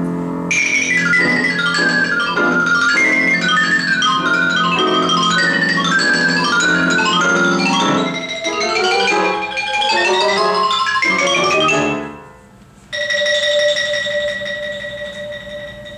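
Xylophone playing a fast run of quick mallet notes over piano accompaniment. The music breaks off about twelve seconds in, then the xylophone holds a single note as a roll.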